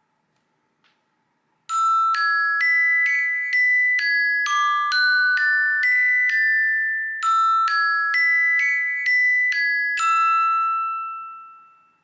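Classic iPhone ringtone: a bright mallet-percussion melody of quick struck notes, glockenspiel-like, starting about two seconds in. The same short phrase plays twice, and the last note rings out and fades near the end.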